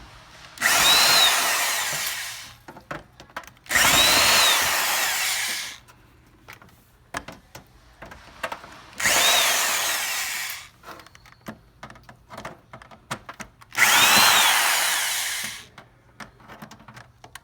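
Power drill-driver backing out screws from a small appliance's plastic back panel: four runs of about two seconds each, the motor pitch rising then falling in each, with a fifth starting at the end. Light clicks and rattles of handling come between the runs.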